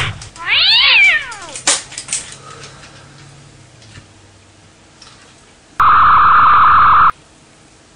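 A shotgun blast fades out at the start, then a cat meows once with a rising-then-falling yowl. Near the end comes a sci-fi ray-gun beam sound effect: a loud, steady electronic buzz lasting about a second and a half that starts and stops abruptly.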